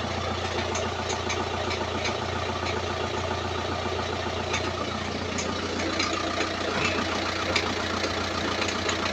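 Audi's engine idling steadily, just started on a newly refitted starter motor.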